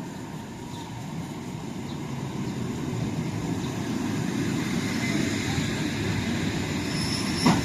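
Suburban electric train (elektrichka) running on rails, a steady rumble growing louder, with a thin high wheel squeal coming in near the end. A brief knock sounds about seven and a half seconds in.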